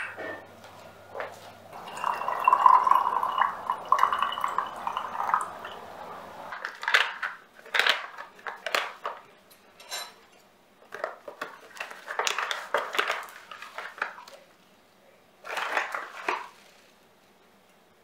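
Kitchen work sounds: a steady rushing noise for a few seconds, then dishes and cutlery clinking and clattering in short bursts.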